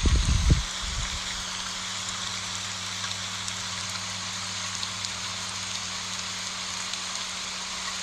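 Steady rain falling on broad elephant-ear leaves, an even hiss of drops. In the first half-second there are several low, heavy thumps that die away.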